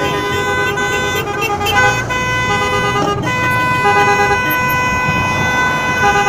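Several car horns honking together: long held tones at different pitches overlapping, some broken into short repeated toots, over the low rumble of cars moving slowly.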